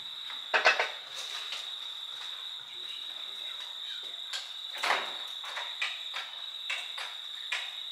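Steady, high-pitched cricket song, with a few short knocks from work at the truck's cab, the loudest clustered about half a second in and another just before five seconds in.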